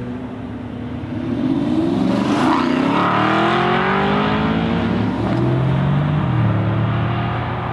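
Sports car engine accelerating hard. It gets louder about a second in, then the pitch climbs and drops back at gear changes, twice.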